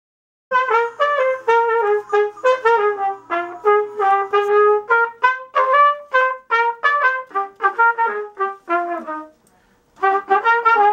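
A trumpet played solo: a quick run of short, separately tongued notes in a melodic phrase, pausing briefly about nine seconds in before a further phrase.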